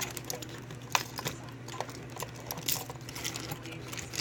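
Small metal clicks and clinks of lock parts and a plug follower being handled and tried at a pin-tumbler lock cylinder, with one sharper click about a second in.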